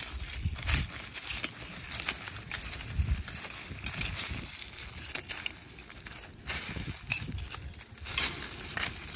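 Metal garden trowel digging into soil among dry fallen leaves: irregular crunching and scraping, with many short clicks and rustles.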